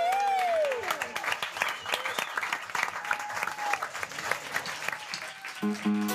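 Audience applauding with scattered cheering voices. About five and a half seconds in, a band starts to play, with plucked bass and guitar notes.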